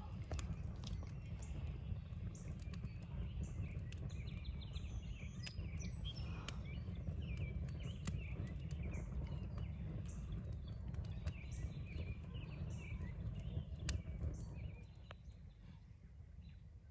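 Campfire crackling with scattered sharp pops over a steady low rumble, with birds chirping in the background. The rumble drops away near the end.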